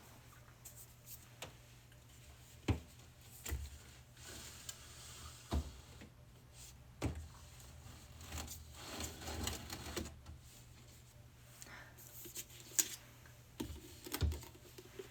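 Drink bottles and cans being handled and moved about in a refrigerator: scattered knocks and clicks, with a softer rustle partway through.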